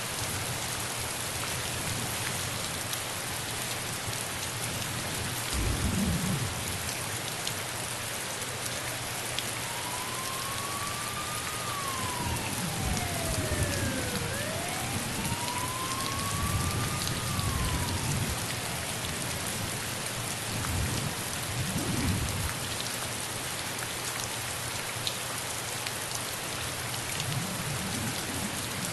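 Steady rain, with low rumbles of thunder rolling in several times. Through the middle a faint wailing tone rises and falls twice.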